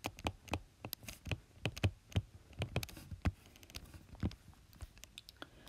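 Stylus tapping and scratching on a tablet screen as a heading is handwritten: a string of short, irregular clicks.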